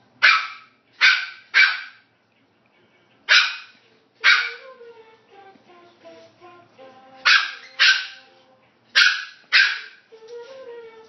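Pomeranian puppy barking in short, sharp, high-pitched barks, nine in quick groups of two or three, demanding a toy from an older dog.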